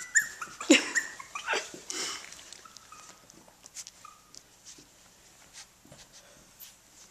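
Teddy bear puppies yelping and whining in play, with several sharp cries that slide down in pitch in the first two seconds, then only faint scuffling and small clicks.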